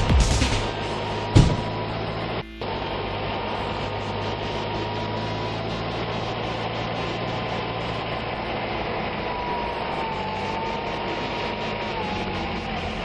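A steady low hum with a hiss over it, with a single sharp click about a second and a half in.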